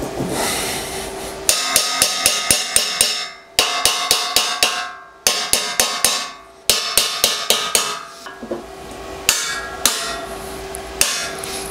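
Steel hammer driving tight-fitting nuts into a 120 mm square steel tube through a steel template: runs of quick metallic strikes, about four a second, with the steel ringing between blows, then a few slower single strikes near the end.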